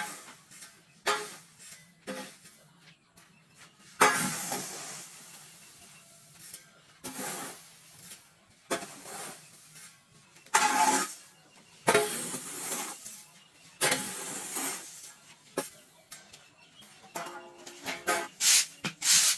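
Irregular rustling and scraping noises, a dozen or so separate bursts of a second or less, some starting sharply.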